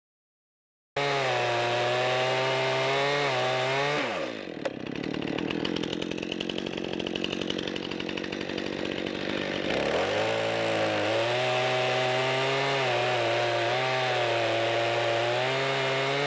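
Two-stroke gas chainsaw running at full throttle, starting abruptly about a second in. About four seconds in, the engine note drops as the chain bites into a log, and for about six seconds the sound is the rough, noisy rasp of sawing through wood. The engine then climbs back to a steady high rev.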